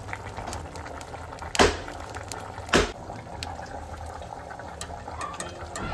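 Pork stew bubbling in a black pot over an open wood fire, with the firewood crackling throughout. Two loud sharp pops about a second apart, the first about a second and a half in.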